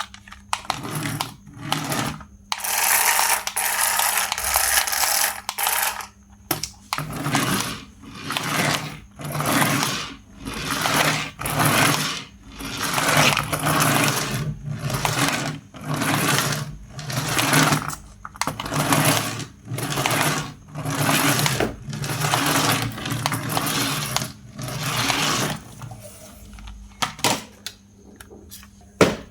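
A small toy RC car's electric motor and plastic gearbox whirring in short bursts, about one a second, as the throttle is pulsed, after one longer run of a few seconds near the start.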